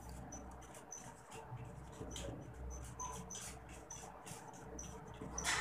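Writing on a board: faint scratching strokes with many short high squeaks, and a louder tap near the end.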